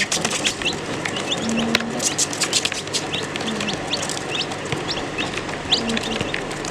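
A group of baby chicks peeping, many short high chirps that rise in pitch and overlap, with sharp clicks of pecking at food among them. A few short low notes sound underneath now and then.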